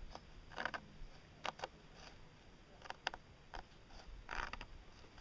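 A hand tool scratching lines into a weathered wooden board in several short, separate strokes, faint and dry.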